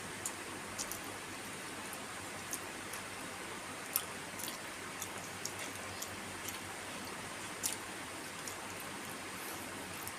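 A person eating kheer and puri: chewing with irregular sharp clicks and smacks over a steady hiss.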